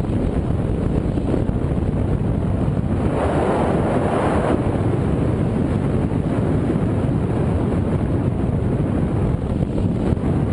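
Wind rushing over the microphone of a camera mounted on a hang glider in flight: a loud, steady rumbling buffet that swells briefly about three seconds in.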